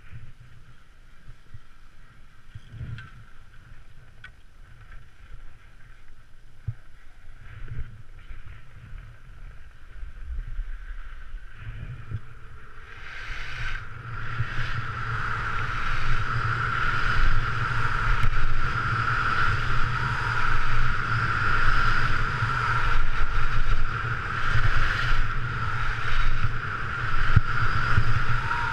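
Skis sliding on packed snow, quiet at first with a few light clicks, then wind rushing over the camera microphone and the skis scraping on the piste as the skier picks up speed about halfway through, turning into a loud, steady rush.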